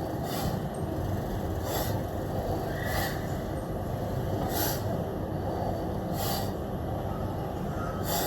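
Sharp, hissing exhales from a person working out, one about every one and a half seconds in time with the reps, over a steady low rumble.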